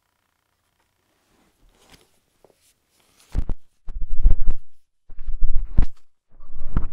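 Handling noise from working the plastic head of a Shark Duo upright vacuum to open the brush-roll access: a few seconds of near silence, then several bursts of deep thumps and rubbing with sharp plastic clicks.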